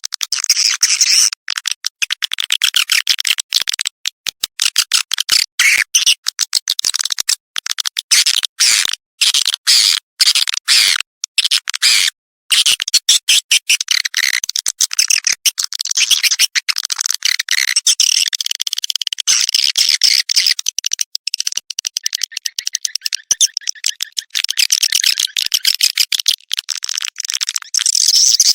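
Swiftlet calls from a call track: a dense, rapid, high-pitched twittering, chopped by frequent abrupt cuts to dead silence, one lasting about half a second around the middle. This is a courtship-call lure track, played to draw swiftlets into a nesting house.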